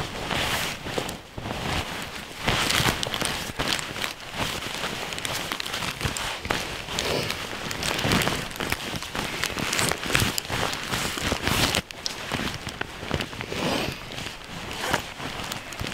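Nylon sleeping bag and backpack fabric rustling and crinkling as a puffy sleeping bag is pressed down and stuffed into a backpack, in uneven surges of swishing.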